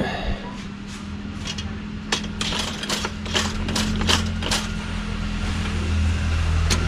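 A vehicle engine running steadily with a low hum, with a string of sharp clicks and knocks over it, thickest in the middle.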